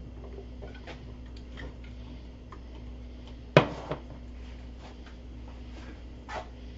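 Scattered light clicks and taps of things being handled on a kitchen counter, with one sharp knock about three and a half seconds in and a smaller one near the end, over a steady low hum.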